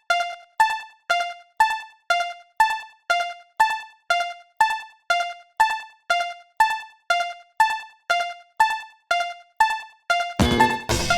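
Japanese railroad-crossing warning bell (fumikiri "kan-kan") ringing, an even string of bell strokes about twice a second, each fading before the next. Near the end a louder, denser burst of many notes cuts in.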